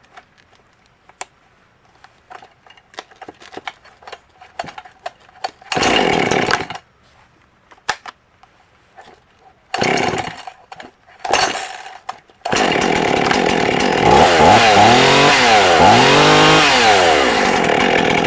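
Two-stroke Husqvarna 51 chainsaw being pull-started: after some faint clicks and knocks, three short sputters come before the engine catches about twelve seconds in. It then runs, revved up and down several times before holding at high speed.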